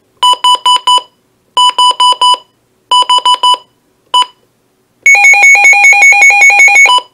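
Midland WR-300 weather alert radio's alarm sounding at its high siren level. Three bursts of four loud, shrill beeps come first, then one short beep. About five seconds in, a rapid two-tone warbling siren starts, switching between a low and a high tone about six times a second, and cuts off suddenly after about two seconds.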